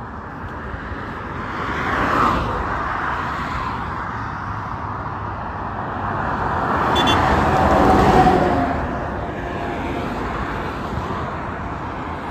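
Road traffic passing close by on a dual carriageway: one vehicle goes past about two seconds in and a louder one swells up and passes around eight seconds in, over a steady traffic rumble.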